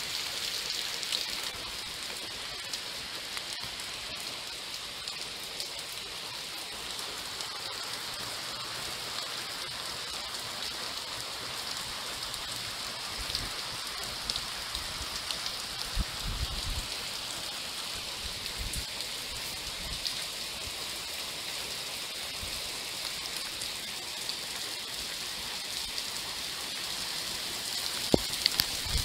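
Heavy rain falling on a concrete driveway and street: a steady hiss with scattered sharper drop ticks. A few low rumbles come and go about halfway through.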